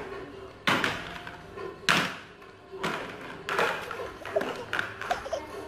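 Orange plastic toy bulldozer knocked and clattered against a wooden floor, a string of sharp knocks roughly one a second, the later ones lighter.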